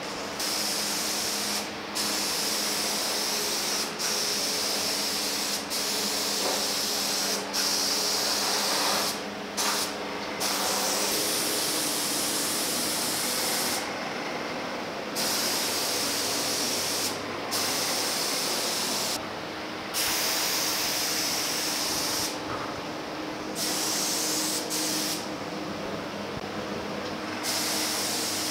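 Gravity-feed paint spray gun hissing as it sprays etching primer. It sprays in repeated bursts of one to a few seconds, broken by short pauses as the trigger is released.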